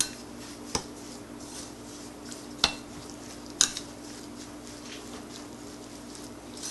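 A spoon mixing thick semolina batter in a bowl, clinking sharply against the bowl four times, with soft stirring between. A steady low hum runs underneath.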